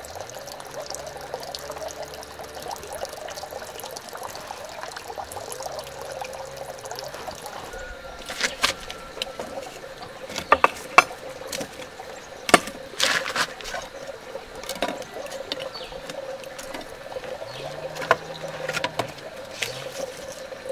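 Water trickling steadily for the first several seconds, then a scattered run of sharp wooden knocks and clacks as sticks of firewood are laid into a stone stove's firebox.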